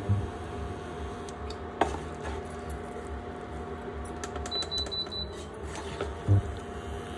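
Wooden spatula tossing noodles in a non-stick pan, knocking against the pan a few times, the loudest knock near the end, over a steady low hum. A short run of four high beeps sounds about two-thirds of the way in.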